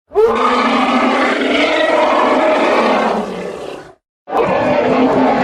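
Elephant roar sound effect: two long, loud roars, the first trailing off after about three and a half seconds and the second following after a short gap.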